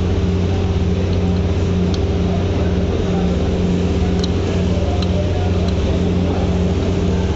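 An engine running steadily, a loud low hum with a slow throb, and a few faint clicks of metal parts being handled.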